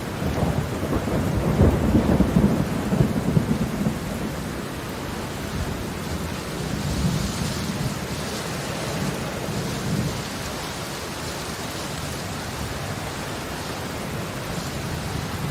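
Heavy rain falling steadily, a dense even hiss, with a low rolling rumble of thunder loudest in the first few seconds that then settles back into the rain.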